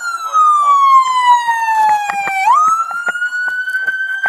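Loud police car siren wailing: its pitch falls slowly, climbs quickly about two and a half seconds in, then holds high.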